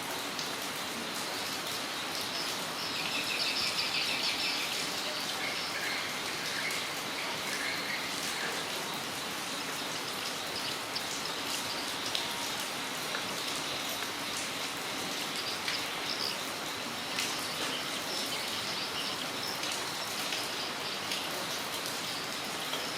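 Steady rain falling, with individual drops tapping close by. A bird chirps in quick repeated runs about three seconds in, and again several times later.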